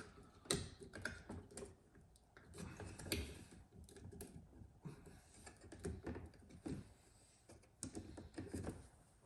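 Faint, irregular clicks and small plastic knocks from hands working electrical connectors loose from a steering column.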